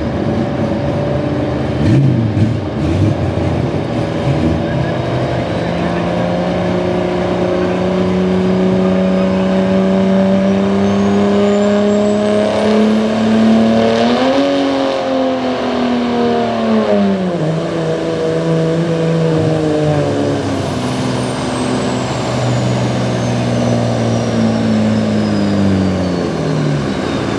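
Dodge Ram's Cummins turbodiesel under full load pulling a sled: engine revs climb slowly to a peak about halfway, drop off sharply, surge again and fall away near the end. A turbo whistle climbs to a very high pitch along with the revs, then slides down.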